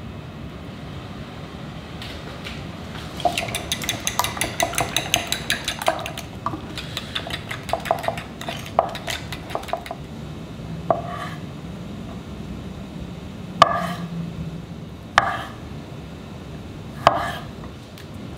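Utensils clinking against ceramic bowls and plates: a quick rapid run of clinks, then scattered clinks, then four sharp single knocks with a short ring. A steady low hum lies underneath.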